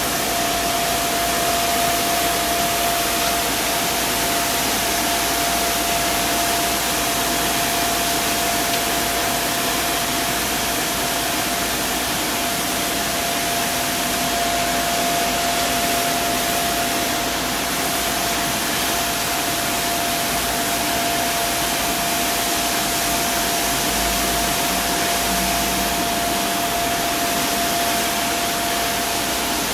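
Street sweeper running steadily: an even hiss and rumble from its engine, brushes and suction, with a steady high whine held throughout.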